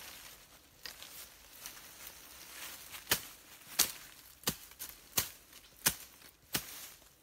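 A knife chopping at the woody stem of a sapling: six sharp strikes, about 0.7 s apart, starting about three seconds in. Before them there is only faint rustling in dry leaf litter.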